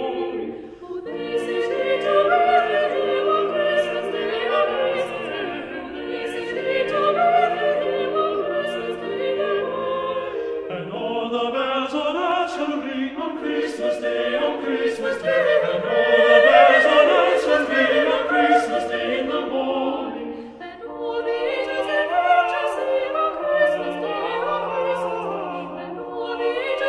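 Background music: choral, operatic-style singing with classical accompaniment.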